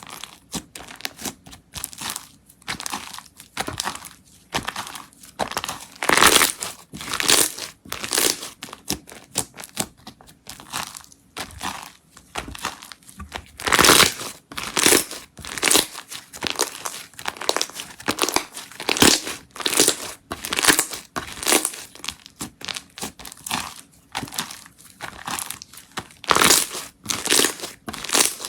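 Slime being squeezed and pressed by hand, giving an irregular run of crackling, crinkling pops, with a few louder ones scattered through.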